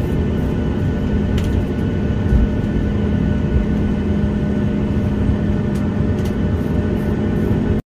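Jet airliner cabin noise while taxiing: a steady rumble from the engines and airframe with a steady hum, heard from inside the cabin. It cuts off suddenly near the end.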